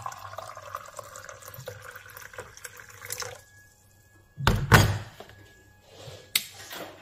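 Hot water poured from a kettle into a ceramic mug over a tea bag, the pour stopping about three seconds in. After a short pause comes a loud double thunk, the loudest sound, and a sharp click near the end.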